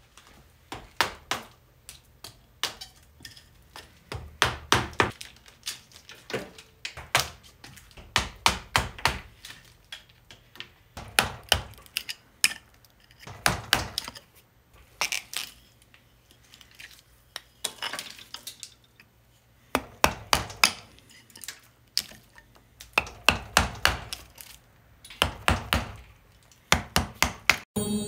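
Irregular sharp knocks and clacks of hard wooden objects and tools being handled. They come in quick clusters of two to five, with short pauses between.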